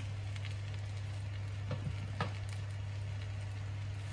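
Sliced button mushrooms frying in butter and oil in a pan: a soft, steady sizzle with a few small pops, over a steady low hum.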